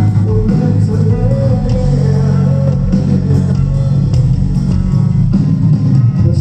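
Live rock band playing an instrumental passage: guitars, bass guitar and drum kit, with no vocals, as heard by a phone in the arena crowd.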